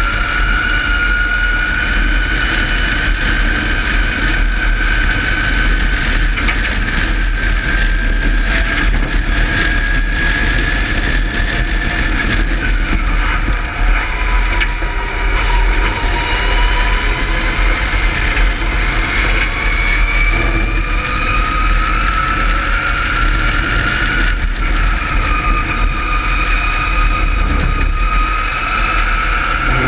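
Palatov DP1e electric race car at speed: its electric motor gives a high whine that rises in pitch as the car accelerates and falls away under braking several times, over heavy wind rush on the microphone and tyre noise.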